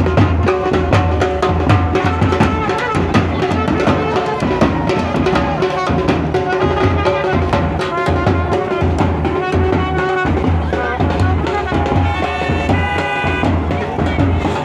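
Wedding brass band playing: large bass drums beating a fast, steady rhythm under trumpets carrying the tune, with a higher, brighter brass phrase near the end.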